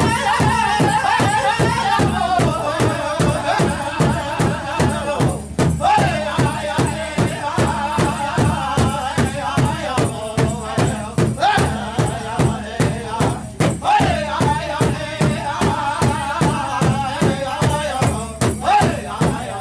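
Powwow drum group singing in high voices over a fast, steady beat struck together on one big drum, the melody stepping down in pitch about two seconds in.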